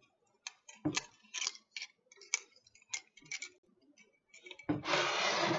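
Tablet-weaving cards clicking lightly and irregularly against one another as they are pushed along the warp threads, then about a second of louder rustling handling noise near the end.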